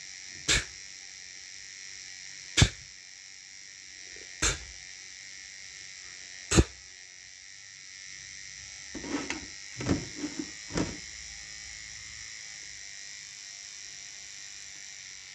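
Sharp clicks at a steady pace, about one every two seconds, four in all, then a short flurry of softer, duller knocks a little past the middle, over a steady low hiss.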